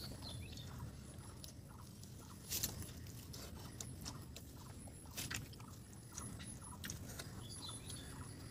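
Faint eating sounds of food eaten by hand: chewing and mouth smacks, with a few sharp clicks every couple of seconds over a low steady background hum.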